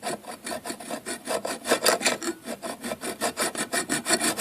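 Small hacksaw cutting a notch in a thin sheet-metal computer slot cover clamped in a vise, with quick, steady back-and-forth rasping strokes.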